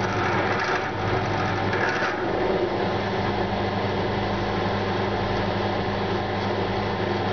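Benchtop drill press running, its bit drilling into a rusty steel plate: a steady motor hum under the even noise of the cut.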